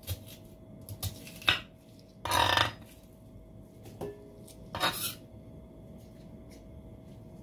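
Chef's knife slicing a red onion on a wooden cutting board: a few sharp knife strokes, then a half-second scrape and a couple of knocks as the slices are swept off the board.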